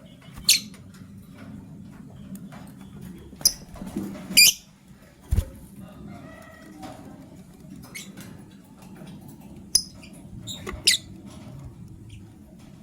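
Lovebirds giving short, sharp, high-pitched chirps, five loud ones spread out with softer chirps between, over a low steady hum. A dull thump comes about five seconds in.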